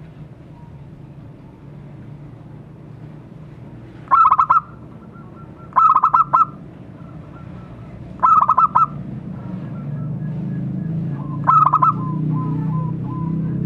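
Zebra dove (perkutut) singing: four short phrases of rapid staccato cooing, each about half a second long and a second or two apart. A low background rumble grows louder in the second half.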